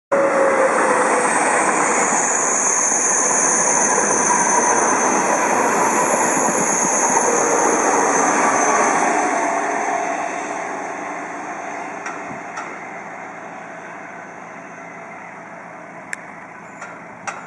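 Renfe passenger train passing along the track, a loud steady rush of wheel and rail noise that fades away from about ten seconds in as the train draws off. A few faint clicks come near the end.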